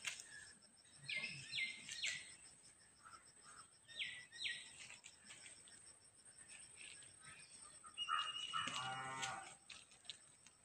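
Faint animal calls: two pairs of short, high calls in the first half, then a louder, low, drawn-out call about eight seconds in.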